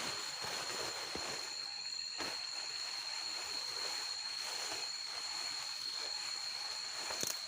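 Forest ambience: a steady rushing noise, like wind in the trees, under a constant high-pitched insect drone, with a couple of faint knocks.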